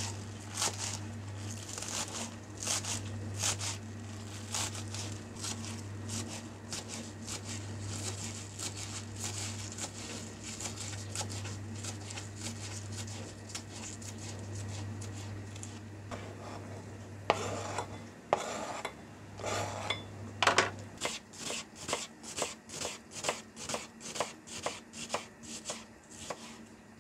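Chef's knife chopping green onions on a plastic cutting board: quick, regular knife strikes against the board, over a low steady hum that stops about two-thirds of the way in. Near the end a bulb onion is sliced, with evenly spaced strikes at about three a second.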